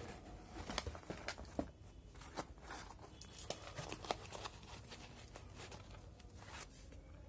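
Hands lifting a canvas sneaker out of a cardboard shoebox and handling it: a run of scattered rustles, scrapes and light knocks of the shoe against the box, busiest in the first few seconds and again near the end.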